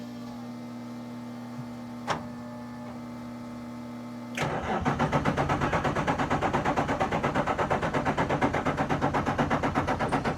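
Nissan S-chassis drift car being cranked: a steady hum with the key on and a sharp click, then, about four seconds in, the starter turns the engine over with an even, rapid chugging that never catches. The car cranks but won't start.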